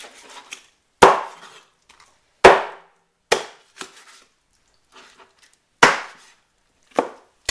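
Knife chopping through pieces of a whole blanched chicken on a chopping board: about six sharp, loud strikes at irregular intervals of roughly a second, with a few lighter knocks between.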